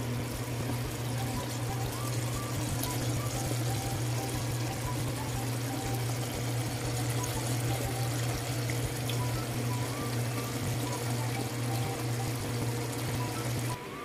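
String beans and pork in soy and oyster sauce bubbling in a wok: a steady hiss over a steady low hum. Both drop away suddenly near the end.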